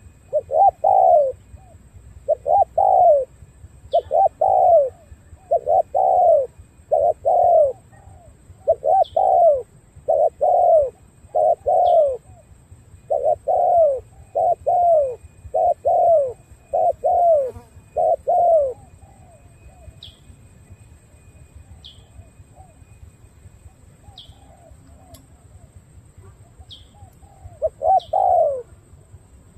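Spotted dove cooing: a long run of repeated low coos for about eighteen seconds, then a pause and one more coo near the end. Faint high chirps of a small bird come in now and then in the background.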